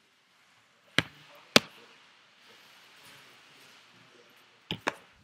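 Sharp knocks or taps: two loud ones about half a second apart a second in, then two softer ones in quick succession near the end.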